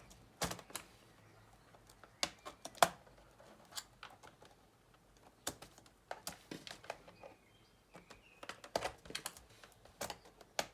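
Irregular small plastic clicks and taps as a pry tool works at the keyboard retaining clips of a Toshiba C850D laptop, with one sharper snap about three seconds in.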